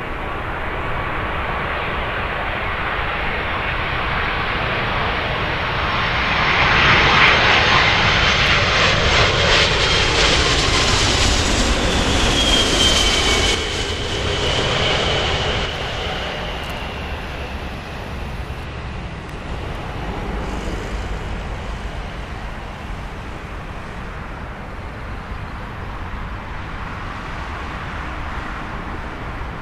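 A British Airways Boeing 747-400's four Rolls-Royce RB211 turbofans on final approach, passing low overhead. The jet noise builds for several seconds and is loudest near the middle. A high whine falls in pitch as the aircraft goes by, then the noise fades away behind it.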